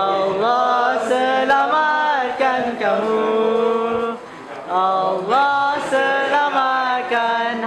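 Male voices singing a chant-like melody without instruments, long held notes stepping up and down in pitch, with a brief pause a little past four seconds in.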